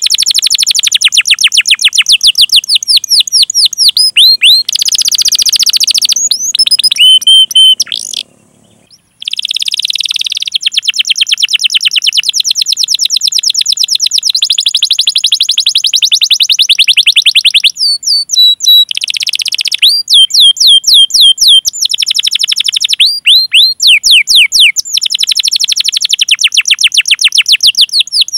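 Canary singing: rapid runs of repeated high, downward-sweeping chirps and long, fast rolling trills, with a brief break about eight seconds in.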